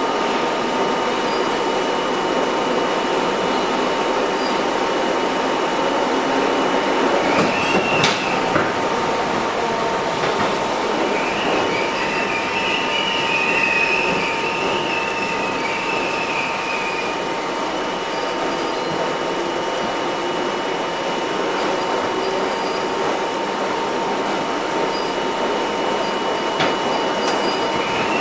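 Budd-built R32 subway car running at speed, heard from inside the car: a steady rumble of wheels on rail. Its wheels squeal in a wavering high pitch about eight seconds in, again for several seconds around the middle, and once more near the end. Two sharp clicks stand out, one about eight seconds in and one near the end.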